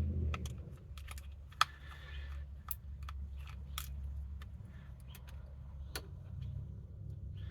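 Scattered light clicks and ticks of a screwdriver turning out small screws from a plastic window-switch housing, over a low steady hum.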